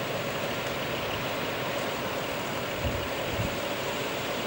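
250 class Bluebird diesel railcar running steadily, a constant noisy engine hum, with a couple of low thumps about three seconds in.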